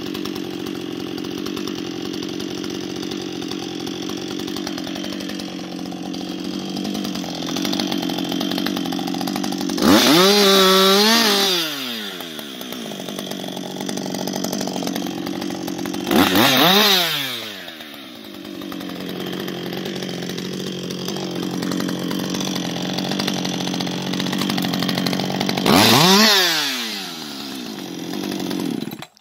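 Husqvarna 560XP II two-stroke chainsaw idling steadily, revved up three times with the pitch climbing and dropping back to idle each time.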